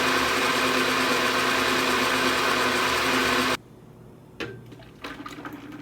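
Countertop blender motor running at a steady speed, then cutting off abruptly about three and a half seconds in; a few faint knocks and clatter follow.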